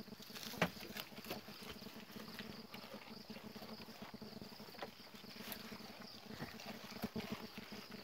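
Goats tearing and chewing fresh-cut green grass and fodder stalks: a string of irregular crunches and snaps, one sharper snap about half a second in, over a steady high hum.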